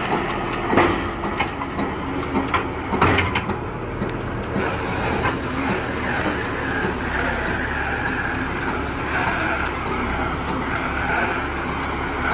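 Round baler running behind a tractor: a steady machinery and engine noise, with a run of knocks and clatter in the first few seconds before it settles to an even hum.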